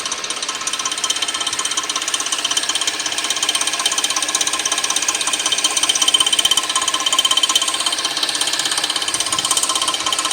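2006 Suzuki 2.7-litre V6 engine running with a rapid, steady metallic ticking clatter, the weird noise under investigation.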